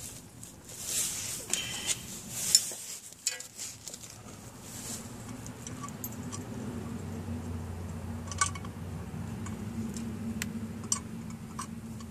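Metal clinking, scraping and handling noise as an engine's oil pickup tube and screen is fitted against the block and its flange bolts are started, with one sharp clink about two and a half seconds in. After that a steady low hum runs on, with a few isolated sharp ticks.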